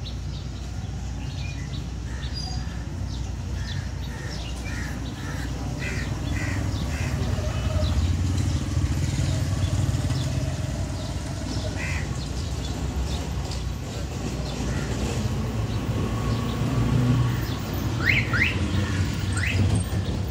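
Low rumble of road traffic that swells a couple of times, with small birds chirping now and then and a few quick rising chirps near the end.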